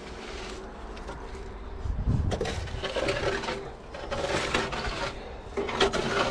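Kaiser X4 spider excavator's engine running steadily, with louder bouts of mechanical clatter and rattling starting about two seconds in.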